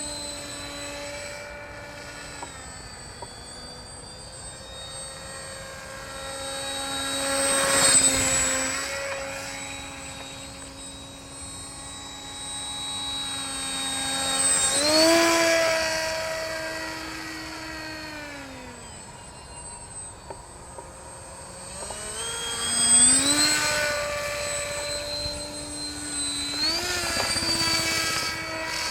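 RC autogyro in flight, its motor and propeller giving a steady whine that steps up and down in pitch with throttle changes. Three times it swells into a louder rush as it passes close by.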